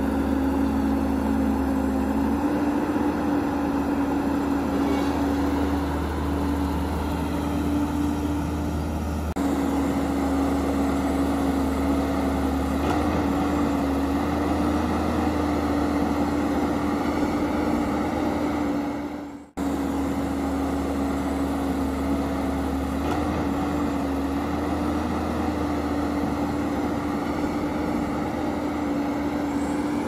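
Steady engine running, a low drone with a constant hum over it, like heavy construction machinery; it cuts out briefly about twenty seconds in and starts again.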